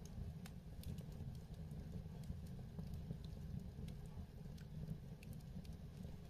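Fire in a fireplace crackling, with irregular small pops and snaps over a steady low rumble of flames.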